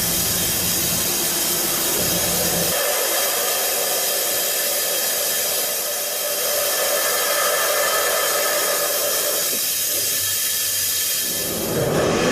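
Steady, loud hissing machine noise with faint steady tones through it, as from a running machine tool; a low rumble under it drops out about three seconds in.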